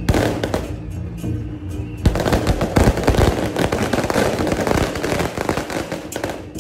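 A string of firecrackers goes off in a rapid, continuous crackle. There are a few scattered bangs at first, the run grows dense about two seconds in, and it stops just before the end. Band music plays with steady held notes underneath.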